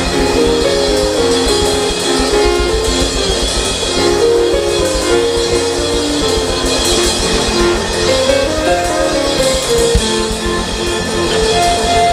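Worship band music with a drum kit keeping a steady beat under a moving melodic line, played as a background to prayer.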